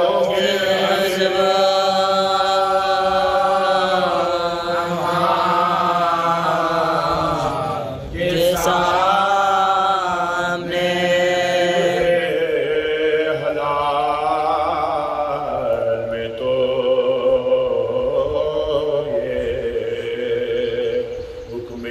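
A man chanting a Shia mourning elegy in Urdu into a microphone, drawing out long, wavering notes with short breaths between phrases.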